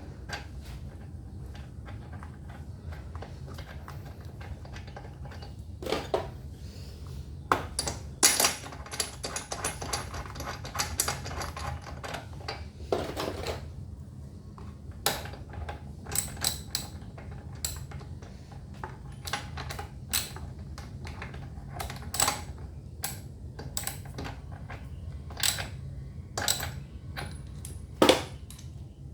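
Scattered metallic clinks, taps and knocks, some in quick little clusters, from hand tools and metal parts being handled on a gasoline inverter generator, over a steady low hum.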